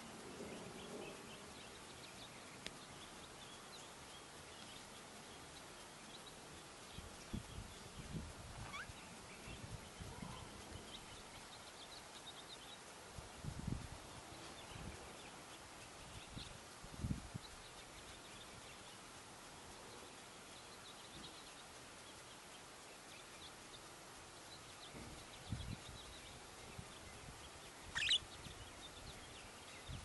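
Soft, scattered chirps from a pair of budgerigars over a steady background hiss, with one short, sharper and louder chirp near the end. A few low thumps come and go.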